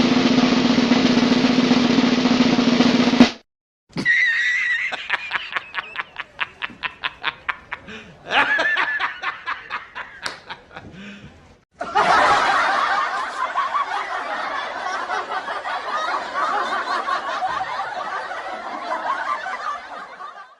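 A run of separate short meme sound-effect clips cut one after another. First comes a loud, dense clip with a steady low tone for about three seconds. After a brief gap there is a stretch of rapid, evenly spaced pulses, and then a long noisy clip.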